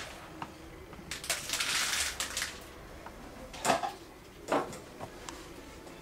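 A small plastic bottle with a flip-top cap being handled over a plastic tub of fishing pellets: a few sharp clicks and knocks, with a rustling, hissing stretch about a second in.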